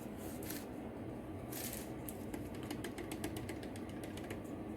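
A hand ratchet wrench clicking rapidly and evenly, about eight to ten clicks a second, as a nut on a car's strut assembly is turned. A short scrape or rustle comes just before the clicking starts.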